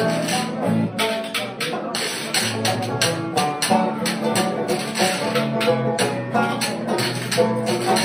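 A small acoustic string band playing: strummed acoustic guitar and picked banjo over a steady beat of washboard scraping and taps.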